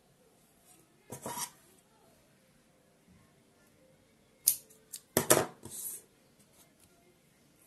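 Scissors cutting through a weft of synthetic doll hair: a short rustle about a second in, then sharp snips and a rustling cut around the middle.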